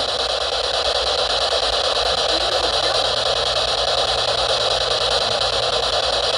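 SB-7 spirit box sweeping through radio frequencies, giving out a loud, steady hiss of radio static.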